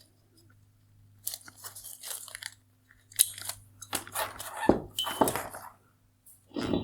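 Plastic wire harness connector being unlatched and pulled off a headlight's LED drive unit: irregular crunching plastic clicks and crackles, busiest in the middle, over a faint steady low hum.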